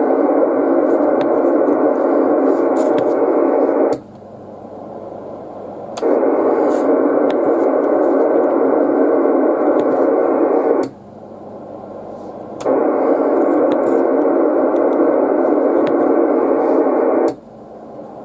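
Yaesu FT-450D transceiver's speaker hissing with FM receiver static on the 11 m band. The hiss cuts off sharply three times for about two seconds each while the radio is keyed to transmit for an SWR reading of the antenna.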